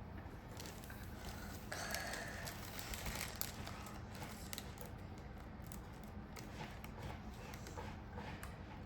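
Small craft pieces being handled: scattered light clicks and rustles, with a brief louder rustle about two seconds in.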